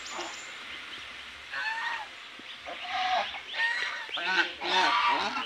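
Domestic geese honking: a quiet start, then a series of short honks from about a second and a half in, the loudest near the end.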